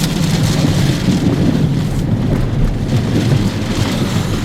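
Rear-flank downdraft wind and rain buffeting a moving vehicle: a steady rushing noise with a heavy low rumble of wind, road and engine.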